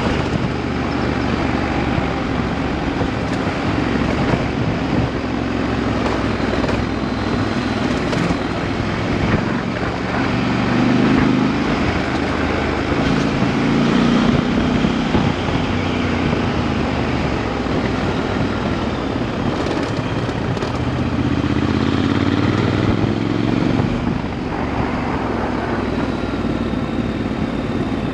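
Motorcycle engine running under way, its pitch rising and falling as the throttle is opened and eased off, over a steady rush of noise.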